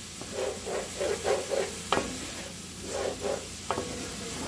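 Diced apple and onion sizzling in pork loin drippings in a pan while a wooden spatula stirs and scrapes through them in quick bunches of strokes. There are a couple of sharp knocks along the way.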